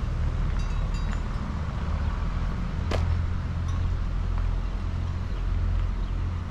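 Low, gusting rumble of wind buffeting the microphone outdoors, with a single sharp click about three seconds in.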